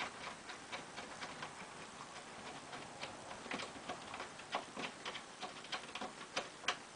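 Light metallic clicks and ticks, a few a second at an uneven pace, from hands fitting a hinge bolt inside a pinball machine's back box.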